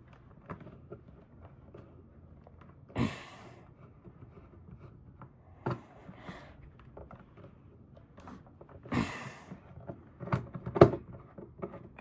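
Scattered small clicks and taps of a screwdriver working screws out of a plastic power strip housing. There are two short rushes of noise about three seconds in and again about nine seconds in, and a quick cluster of sharper clicks near the end.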